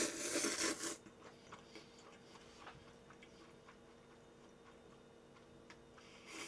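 Slurping up a mouthful of cold naengmyeon noodles in a noisy burst during the first second, then quiet chewing with small wet clicks, and another short slurp near the end.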